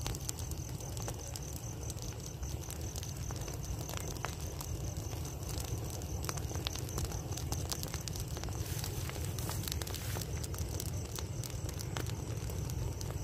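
Large pile of rice straw burning, crackling with many sharp snaps over a steady low rumble.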